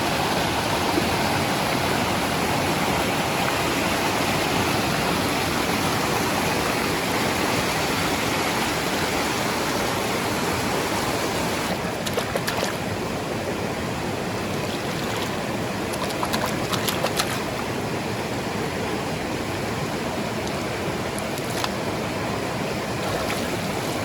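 Steady rush of flowing water, with a few faint clicks about halfway through.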